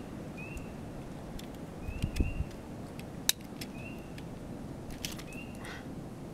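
Clicks and knocks of the plastic parts and circuit board of a disposable camera being handled and taken apart. There is a low thump about two seconds in and a sharp click a second later. A short, high rising chirp repeats about once a second in the background.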